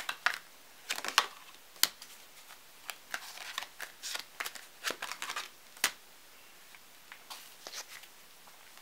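A deck of tarot cards being shuffled by hand: a quick, irregular patter of short card flicks and slaps, thinning out over the last few seconds.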